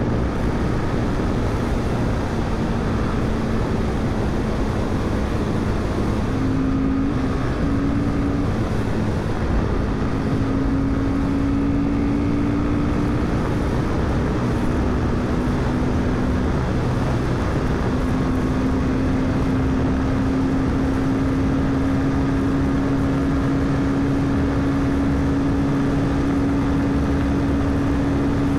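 Royal Enfield Himalayan 452's single-cylinder engine and exhaust running hard at high cruising speed, its pitch climbing slowly in the second half as the bike accelerates, over heavy wind and road noise.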